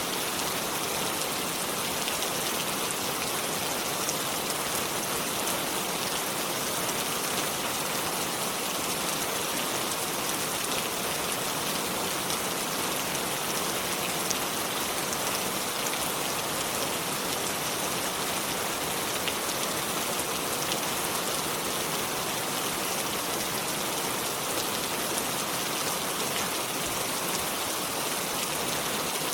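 Steady rain falling, a dense even hiss with scattered fine drop ticks that neither builds nor fades.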